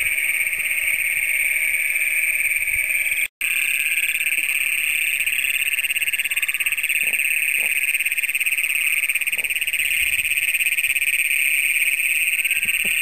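Loud chorus of many Great Plains toads (Anaxyrus cognatus) calling together, their long trills overlapping into one steady, high drone. The sound cuts out for an instant about three seconds in.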